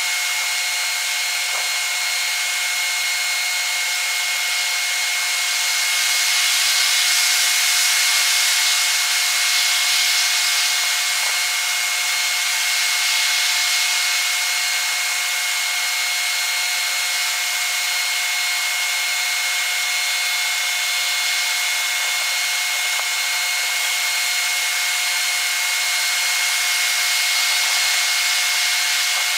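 Steady high-pitched hiss with several constant thin whines and no low end, swelling slightly about six to ten seconds in: the sound of a sixfold-speeded timelapse of the night station.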